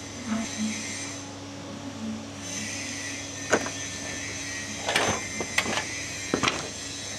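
Metal parts and hand tools clicking and clinking now and then, about six times, as a 1944 ZF gearbox oil pump is unbolted and split apart. The clicks sit over a steady low workshop hum, and a faint high whine joins about two and a half seconds in.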